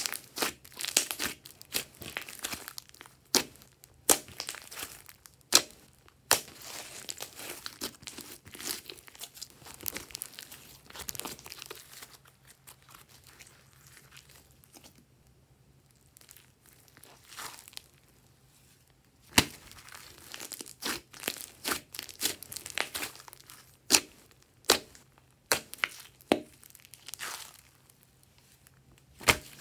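Hands squishing, folding and stretching glossy slime: sticky crackling broken by many sharp pops and clicks, with a quieter spell of several seconds around the middle.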